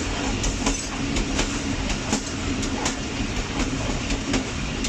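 Passenger train coaches running along the track: a steady rolling rumble with sharp wheel clicks as the wheels pass over rail joints, about one or two a second.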